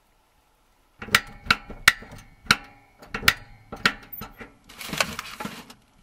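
A quick series of about eight sharp knocks and clicks, irregularly spaced. A short rustling hiss comes about five seconds in.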